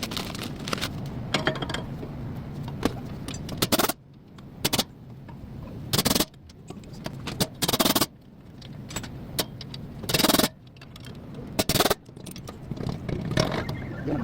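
Short, loud metallic clanks and scrapes from tools and parts during rear wheel hub work, coming every second or two over a low background hum.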